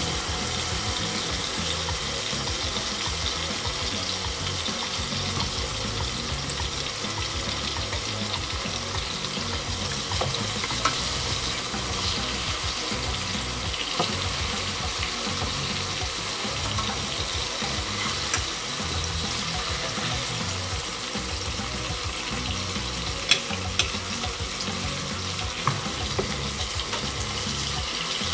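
Banana slices sizzling in a hot frying pan, with a steady frying hiss. A few sharp clicks of the fork against the pan as the slices are turned, the loudest near the end.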